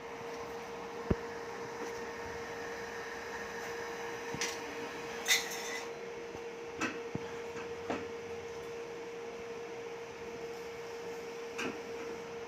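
A steady hum at one unchanging mid pitch, with a few short clicks and knocks scattered through it.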